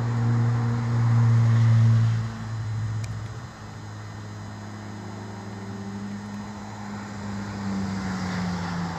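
A motor vehicle engine humming, loudest in the first couple of seconds and dropping away about three seconds in, then a quieter engine tone sinking slowly in pitch.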